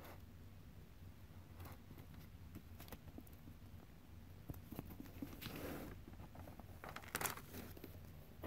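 Faint rustling and crinkling of paper as a sticky-note tab is folded and pressed onto the edge of a notebook page, with a louder crinkle about seven seconds in.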